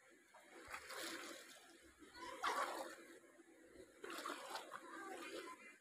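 Water sloshing and splashing around a person's legs as they wade through a shallow canal, coming in uneven surges, the loudest about two and a half seconds in.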